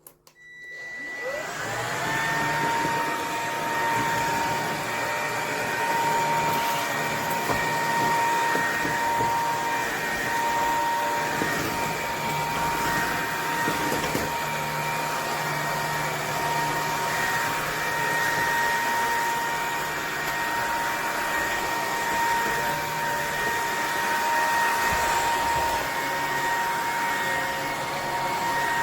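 Bissell PowerClean FurGuard cordless stick vacuum switched on: the motor spins up with a rising whine over the first couple of seconds, then runs steadily with a high whine over the rush of suction air.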